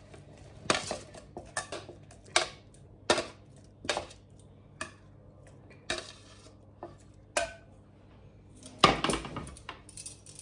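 Stainless steel kitchen tongs clicking and scraping against a metal baking tray and a wooden mortar as roasted chillies, garlic and shallots are picked up and dropped in, a sharp clink every second or so. Near the end comes a louder clatter of metal as the tongs are set down.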